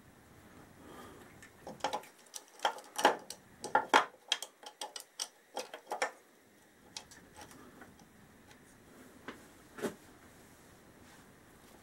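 Metal clicks and clinks from a Honda XL1000 V-twin's exhaust camshaft, sprocket and timing chain being handled and seated into the cylinder head. A quick run of sharp ticks lasts a few seconds, followed by a couple of single clicks near the end.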